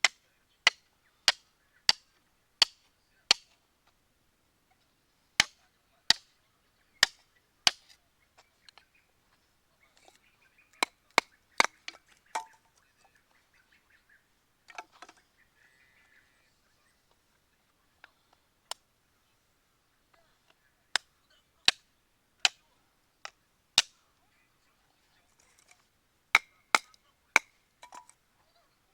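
Batoning firewood: a wooden baton knocking on the spine of a nata (Senkichi leisure nata) to drive it through a log, in runs of sharp knocks about one and a half a second, with pauses of faint scraping between runs.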